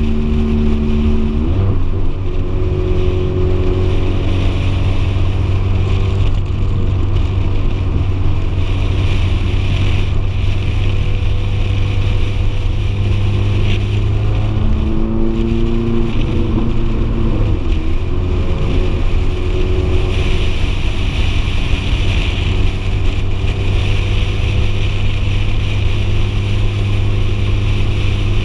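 Ferrari F430 Spider's 4.3-litre V8 engine running under way, a steady low drone whose pitch shifts about a second and a half in, then climbs and steps back down around the middle. Wind and road hiss on the door-mounted microphone run underneath.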